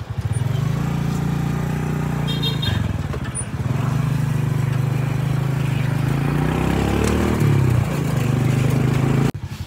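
Motorcycle engine of a tricycle (motorcycle with sidecar) running under way, heard from inside the sidecar. Its note dips and climbs again about three seconds in, and the sound drops off sharply near the end.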